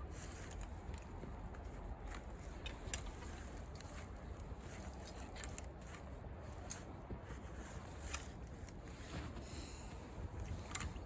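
Hand-operated come-along winch being ratcheted to pull a log: irregular sharp clicks and scrapes over a steady low rumble.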